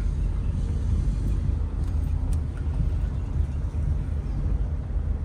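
Car driving slowly, its engine and tyre rumble heard from inside the cabin as a steady low drone.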